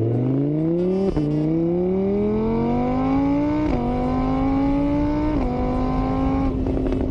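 Car engine accelerating up through the gears: a rising note that drops back at each of three gear changes, then holds steady at a constant pitch.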